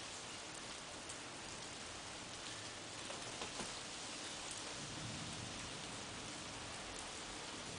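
Steady rain falling: an even hiss with scattered drops ticking.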